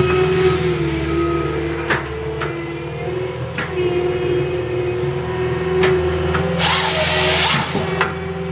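Skid steer engine running steadily while its Halverson HWP-140B firewood processor attachment works a log, with a wavering whine, several sharp knocks of wood, and a harsh burst of noise lasting about a second near the end.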